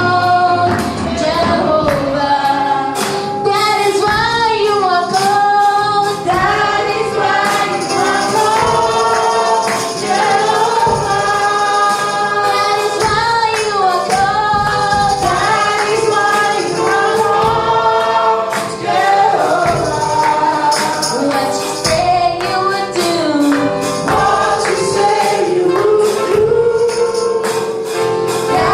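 Gospel praise-and-worship singing by a choir, with a tambourine shaken along in steady rhythm.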